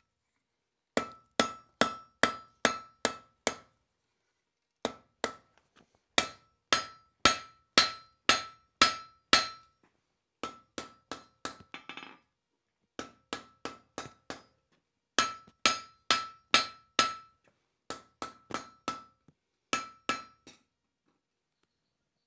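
Hand hammer striking red-hot steel on an anvil, rounding up the end of the bar, in runs of several blows about two or three a second with short pauses between. Each blow rings briefly off the anvil. Some blows are lighter than others, and the hammering stops near the end.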